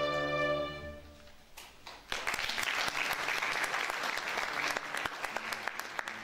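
A string orchestra's sustained closing chord dies away about a second in. After a short pause, audience applause starts about two seconds in and continues, thinning out near the end.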